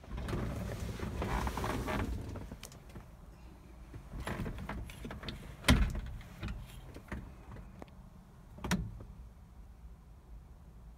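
Rustling and handling noise for about two seconds, then scattered clicks and knocks inside a pickup's cab. One sharp knock falls near the middle and another about three seconds later.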